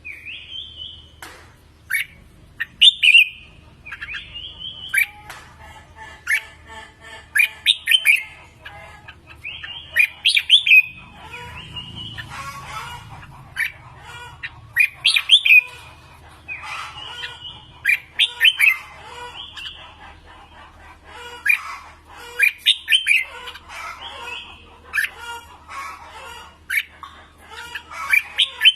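Red-whiskered bulbuls singing: short bright phrases of quick whistled notes, one burst every second or two.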